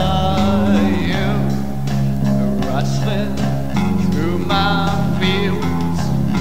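Music: a song led by an electric bass guitar, which holds long low notes that change every second or so under a gliding higher melody.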